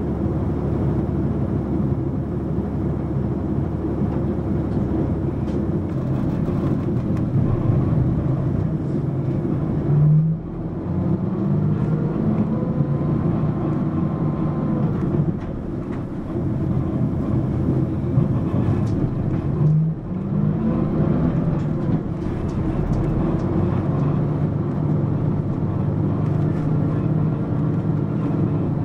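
Mitsubishi Fuso PA-MK25FJ city bus running, heard from inside the cabin. There is a brief jolt and a dip in the engine sound about ten seconds in and again about twenty seconds in. After each one the engine note climbs as the bus pulls away or shifts gear.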